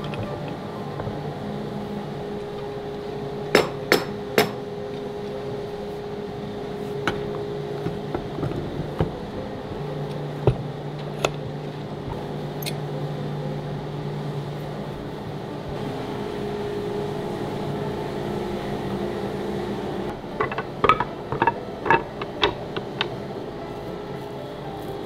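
Sharp knocks and metallic clinks from wood strips being clamped up in steel pipe clamps for an end-grain cutting board glue-up, over a steady low hum. There are three quick knocks a few seconds in, a few scattered ones after, and a quick run of them near the end.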